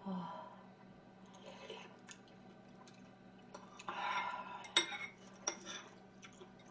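Metal spoon scraping and clinking against bowls while eating, in several short scrapes with a few sharp clinks a little after the middle.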